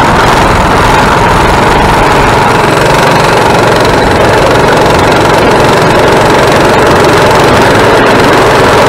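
Coleman mini bike's small single-cylinder four-stroke engine running steadily at low riding speed, loud and close to the microphone.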